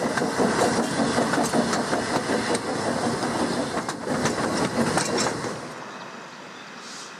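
Narrow-gauge railway carriages rolling past close by, their wheels clattering and clicking over the rail joints. About six seconds in this gives way to a much quieter, steadier sound, with a short hiss near the end.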